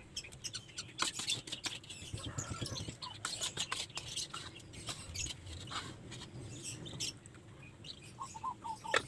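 A metal spatula clinking and scraping against an aluminium pot as sautéed spice paste is added to boiling chicken broth and stirred in: a scatter of light clicks and taps throughout.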